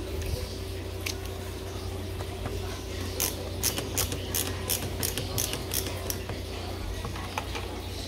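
Screwdriver driving screws into a plastic control panel: a quick run of sharp clicks, about four a second, from about three seconds in until about six.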